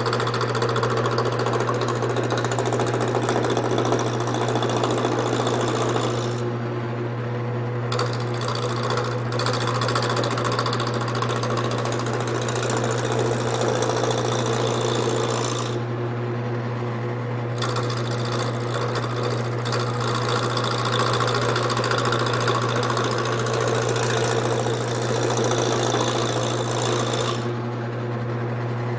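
Wood lathe motor running with a steady hum while a large gouge cuts the corners off a square, spinning wood blank, a continuous rough scraping chatter. The cutting noise drops away briefly three times as the gouge comes off the wood between passes.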